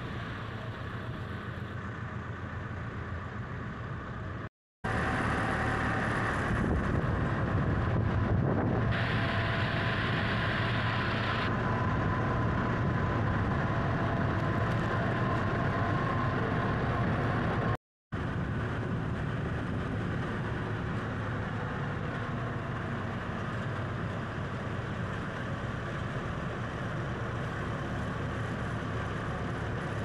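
A motor vehicle running steadily, with engine and road noise. The sound cuts out for an instant twice, about four and a half seconds in and again just past halfway, and it is louder after the first cut.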